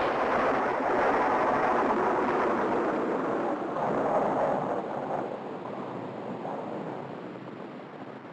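Thunder sound effect: a long rolling rumble that follows a sharp crack, loudest in the first half and fading away over the last few seconds.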